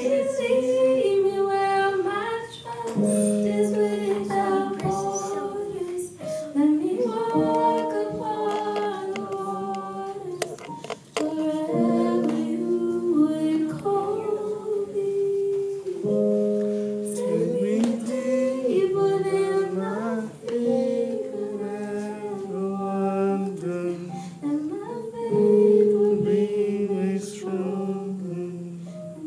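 A woman singing a song into a microphone while accompanying herself with sustained chords on an electronic keyboard.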